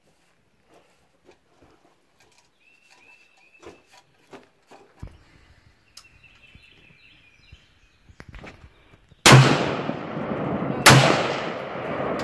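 Two rifle shots from a Remington 740 Woodsmaster semi-automatic in .308, about a second and a half apart, each followed by a long echoing tail.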